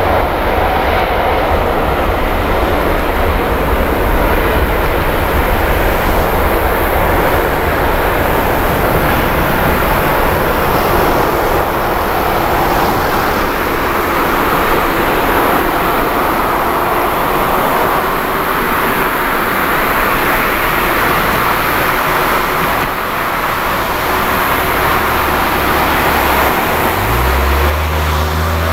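ANA Boeing 787-9's Rolls-Royce Trent 1000 turbofans at takeoff power as the jet rolls away down the runway: a loud, steady jet roar with a deep rumble. Near the end a second engine sound rising in pitch joins in.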